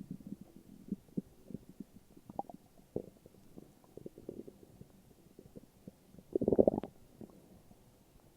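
Human stomach growling and gurgling: scattered short gurgles and pops, with one louder rumble lasting about half a second about six and a half seconds in.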